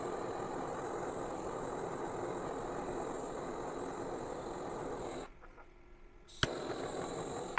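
Steady rushing noise of a heating tool running on the remote's battery contact for about five seconds, then shut off abruptly, with a single sharp click about a second later.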